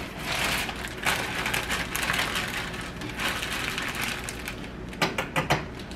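Rustling, scraping kitchen handling noise from adding seasoning to a bowl of batter and working it in, ending in a quick run of sharp taps about five seconds in.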